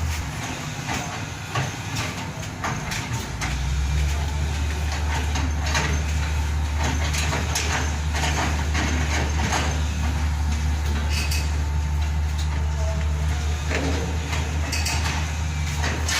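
Backhoe's diesel engine running with a heavy, steady low drone that gets louder about four seconds in, with scattered clanks and knocks over it.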